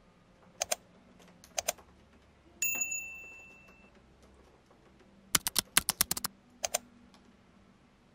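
Click and typing sound effects of an on-screen subscribe-and-comment animation. Two mouse clicks come first, then about two and a half seconds in a short bright chime that fades over a second. After that comes a quick burst of about ten keyboard keystrokes and a final click.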